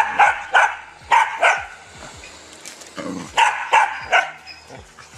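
A dog barking: about eight short, sharp barks in quick clusters of two or three, with a gap of about two seconds in the middle.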